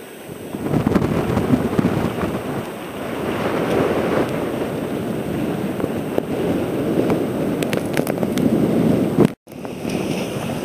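Wind buffeting the microphone over the rush of choppy water past a moving boat. The noise grows louder about half a second in and cuts out for a moment near the end.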